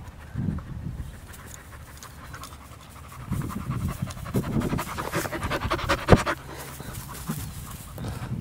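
Young Vizsla panting rapidly with its tongue out, the breaths coming thickest through the middle of the stretch. One sharp click cuts in about six seconds in.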